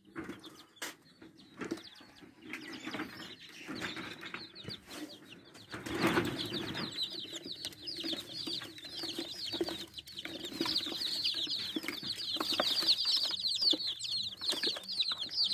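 A flock of newly hatched country-chicken chicks peeping. Their short, high, falling chirps become dense from about halfway through and grow louder toward the end. In the first half there are scattered knocks and handling noises.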